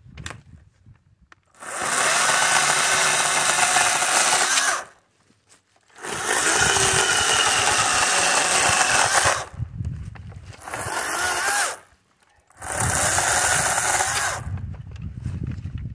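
Kobalt 40V Max battery-powered electric chainsaw running in four bursts while cutting thin branches, the longer ones about three seconds each and a short one in the middle. The motor cuts off sharply between bursts, with near silence in the gaps.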